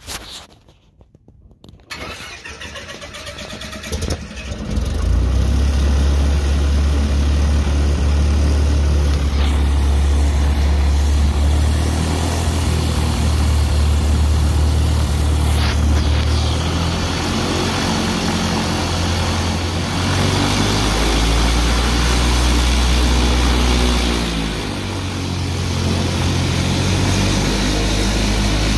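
A Cessna 172's piston engine cranking over and catching about four to five seconds in, then running steadily, its speed shifting a few times.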